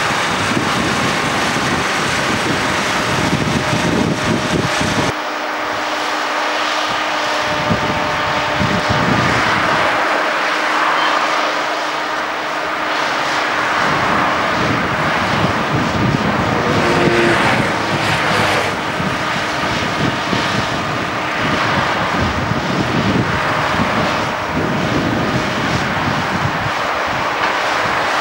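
Diesel engine of a rail-mounted crane running steadily, a continuous mechanical drone.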